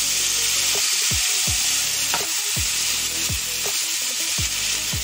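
Loud, steady hissing sizzle of water hitting ghee-toasted vermicelli in a hot frying pan and boiling up in a cloud of steam.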